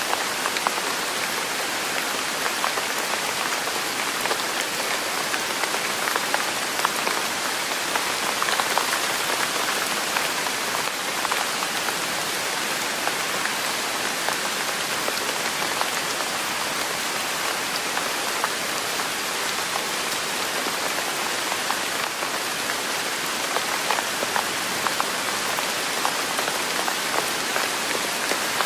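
Steady rain falling: an even hiss with many small drop ticks scattered through it, unchanging throughout.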